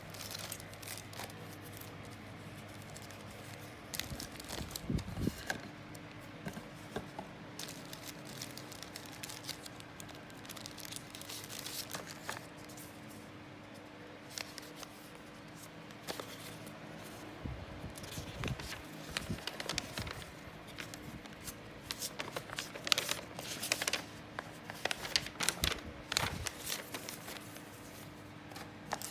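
Toy car packaging being handled and opened by hand: irregular crinkling, tearing and rustling with small clicks, busiest in the last third, over a faint steady hum.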